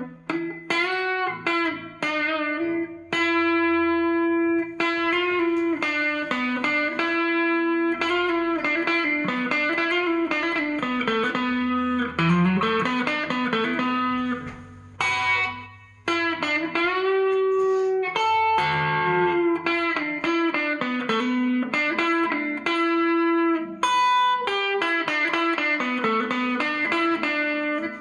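Electric guitar played through a Line 6 modeling amp patch on the '58 Fender Bassman amp model, with a crunchy classic-rock tone. It plays single-note phrases and riffs with string bends, pausing briefly a couple of times.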